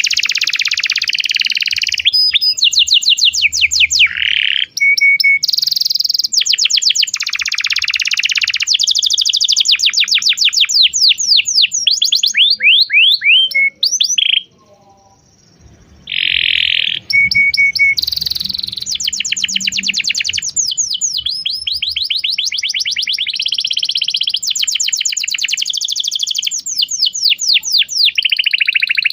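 Domestic canary singing a long song of rapid trills: runs of fast, repeated high chirps that change pattern every second or two, with one short pause about halfway through.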